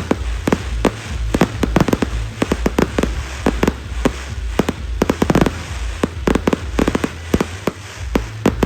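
Fireworks going off in rapid succession: many sharp bangs and crackles a second over a continuous low rumble.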